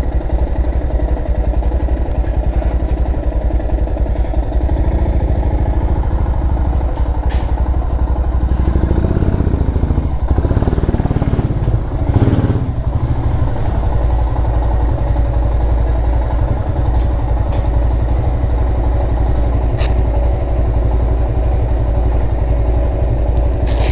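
Motorcycle engine running at low speed with a steady, even beat, briefly rougher and louder about eight to thirteen seconds in.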